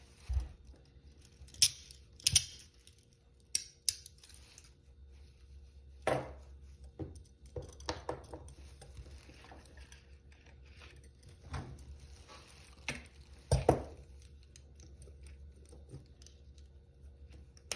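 Metal handcuffs being handled: scattered sharp metallic clicks and clinks with a few duller knocks.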